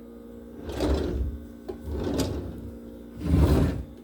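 Drawers being slid open and shut: three rubbing slides with a sharp click among them, the last the loudest, over a steady low hum.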